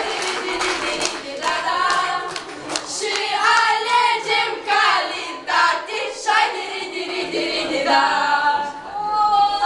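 A group of girls singing together, with some hand claps among the singing.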